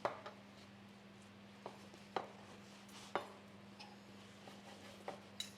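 About six light, irregular knocks of a kitchen knife on a cutting board as raw chicken breast is cut into strips, under a faint steady hum.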